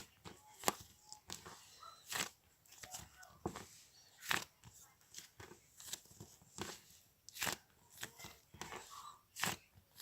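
Irregular sharp clicks and crunches, one or two loud ones a second with fainter ones between.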